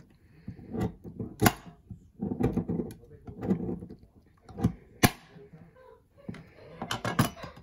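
Large kitchen knife cutting a hard block of cocoa butter on a glass cutting board, with several sharp knocks of the blade against the glass; the loudest comes about five seconds in.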